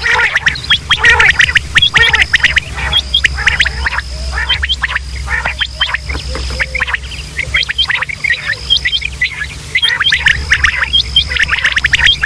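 Quail calling: rapid, overlapping short chirping notes in quick succession, over a steady low hum. A thin, high steady tone comes and goes.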